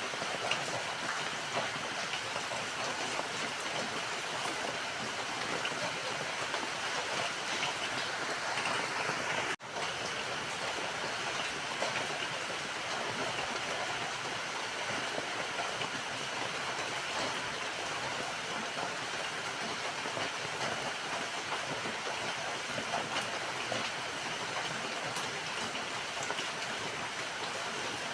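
Steady rain falling: a dense, even hiss of rain with fine drop patter scattered through it. The sound drops out for an instant about a third of the way through, then carries on unchanged.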